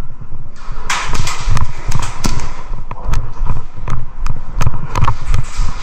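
Airsoft gunfire in an indoor arena: scattered sharp cracks of shots, irregularly a second or less apart, over repeated low thuds of footsteps on a concrete floor.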